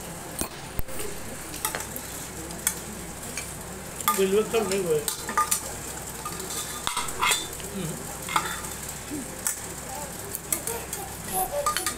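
A small child stirring and tapping a spoon inside a pot: irregular clicks, knocks and scrapes.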